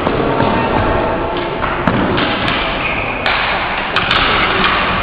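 Floor hockey play on a hard gym floor: sticks and ball knocking irregularly in a scramble at the net, with a steady noise of play underneath.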